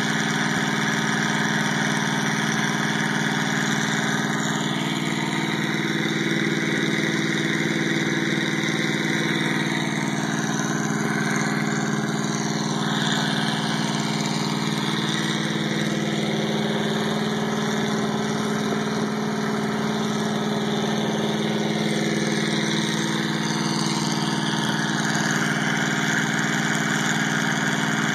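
The 1957 Studebaker fire engine's motor running steadily at a constant speed, with no revving or change throughout.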